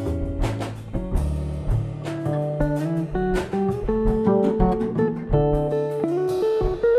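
Jazz-candombe trio playing: a plucked guitar melody over walking double bass lines and a drum kit with cymbals.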